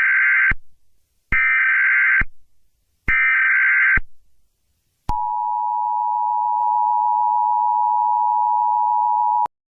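Emergency Alert System SAME header: three short bursts of data tones, each about a second long and a second apart. About five seconds in, the steady two-tone EAS attention signal starts and holds for about four and a half seconds before cutting off, which is the standard opening of an alert before the spoken message.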